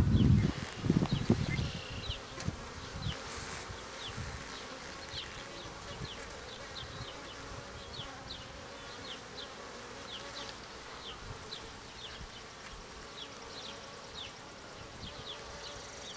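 Honeybees buzzing steadily around an open hive being inspected. A few knocks and bumps sound in the first second or two.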